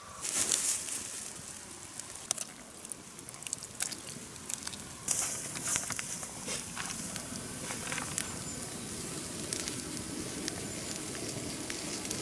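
Campfire crackling, with scattered sharp snaps and pops and two bursts of hissing, one just after the start and another about five seconds in.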